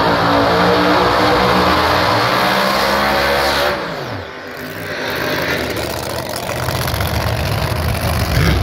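Drag race cars at full throttle down the strip, a loud engine note. About four seconds in the note falls away steeply and the level dips, then a lower, rougher engine rumble carries on.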